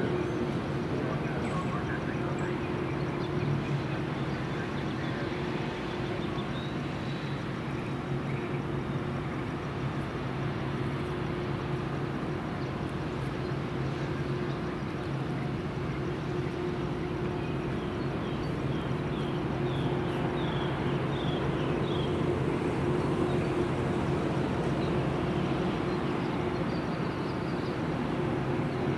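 Railroad diesel engine running steadily, a constant low drone without change in level. A run of faint high chirps comes about two-thirds of the way through.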